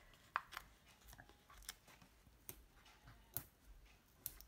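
Faint scattered small clicks and crackles of foam adhesive dimensionals being peeled off their backing sheet and pressed onto a card circle.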